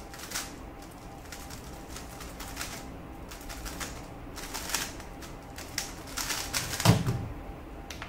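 MoYu WeiLong WR M 2021 Maglev 3x3 speedcube turned fast by hand, making spells of quick plastic clicking that grow denser in the second half. About seven seconds in there is a solid knock as the solve ends, the cube set down and the timer slapped.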